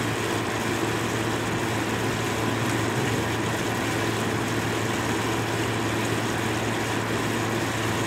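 Air conditioner running, a steady low hum with even fan noise over it.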